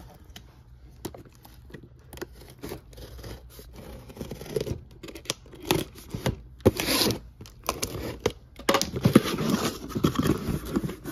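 Packing tape on a cardboard shipping case being slit and torn open, with scraping and rustling of the cardboard flaps; a longer tearing rip comes about seven seconds in.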